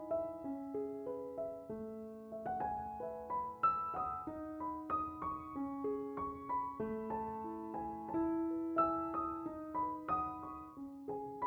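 Piano music: a melody of sustained, overlapping notes, a new note about every half second.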